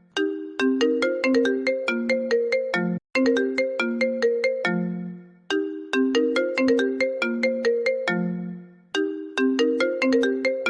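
iPhone ringtone playing: a short melody of quick notes repeating about every three seconds, each phrase ending on a lower held note, with a brief break before the next.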